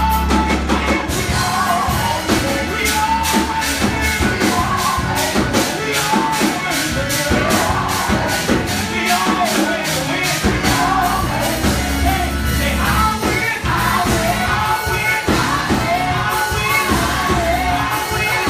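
Gospel praise music in a church: singing voices over drums and a heavy bass, with a steady beat.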